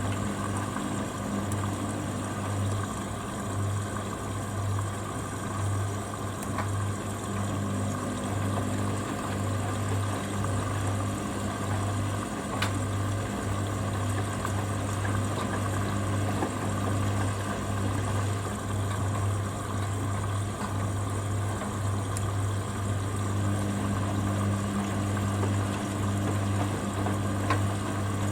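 Hoover Dynamic Next washer-dryer at the start of its first spin, its drain pump humming steadily as it pumps out the wash water, with water running through and a hum that pulses about once a second.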